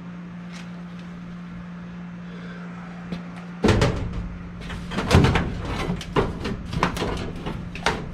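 A steady low hum, then from about three and a half seconds in a run of loud knocks and bangs, like hard objects being handled and set down around the furnace.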